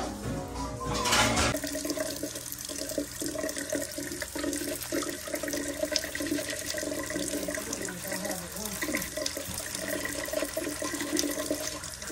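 Bathroom tap running into the sink, with toothbrush scrubbing during tooth-brushing.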